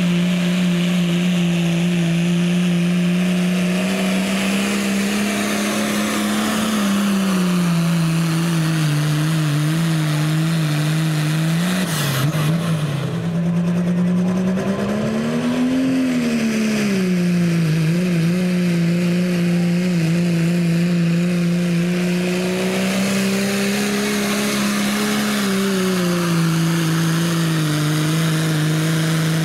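Diesel pickup truck engines held at high revs under full load while pulling a weight-transfer sled. The engine note stays mostly steady, dips briefly, and rises and falls in pitch near the middle. The sound changes abruptly about twelve seconds in as one truck's run gives way to another's.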